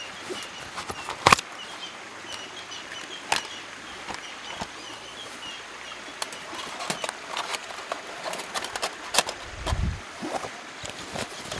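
Scattered sharp knocks and clicks, the loudest about a second in and a low thud near the end, over the steady hiss of river water. A bird chirps over and over in the first few seconds.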